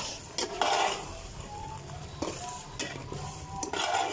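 Metal slotted spoon stirring and scraping a thick onion-tomato masala in a metal pot, in several separate strokes, over a soft sizzle of the masala frying in oil.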